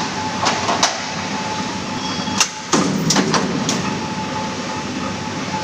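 Mechanical punch press punching an aluminium scaffolding plank profile: a series of sharp metallic strikes, the loudest and closest together about two and a half to three and a half seconds in, one with a brief metallic ring. A steady machine hum runs underneath.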